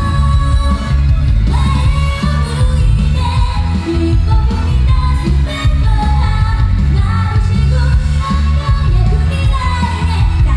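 A female vocalist sings live into a handheld microphone over loud pop accompaniment with a heavy bass line, amplified through a concert sound system.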